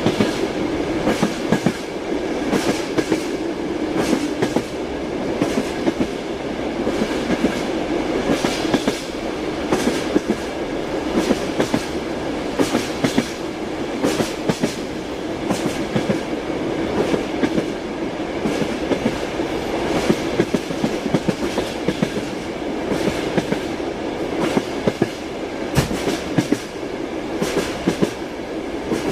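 Train wheels clattering over rail joints: a steady rolling rumble with repeated sharp clacks.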